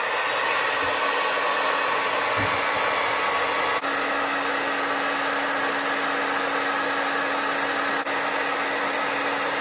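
Steady rushing of fans and blown air from a power inverter and its resistive load under a full-power draw of about 128 amps from a 12 V lithium battery. A low steady hum joins about four seconds in.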